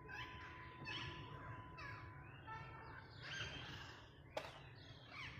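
Parrot calling in a run of short squawks and chirps, several sliding down in pitch, with a sharp click about four seconds in.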